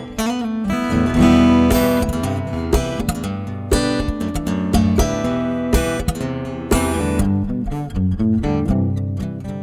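Solo steel-string acoustic guitar played fingerstyle, with notes tapped on the fretboard. Sharp percussive accents come roughly once a second over ringing, overlapping notes.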